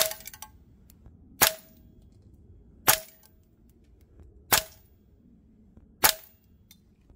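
Guns Modify HK416 A5 MWS gas blowback airsoft rifle firing five single shots of 0.25 g BBs, each a sharp crack with a brief ring, about one and a half seconds apart.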